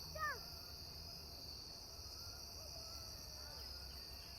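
A steady high-pitched insect chorus, like crickets, over a low outdoor rumble. Just after the start comes a short falling call, the loudest sound, and fainter drawn-out tonal calls follow in the middle.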